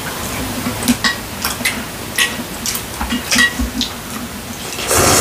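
Chopsticks and a spoon clicking and clinking against glass bowls of noodle soup, a dozen or so short taps, some with a brief ring. Near the end a loud slurp of noodles.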